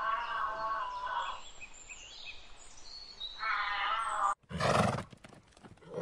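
A wavering, pitched animal call, heard twice. Then, after an abrupt cut about four and a half seconds in, a horse neighs loudly.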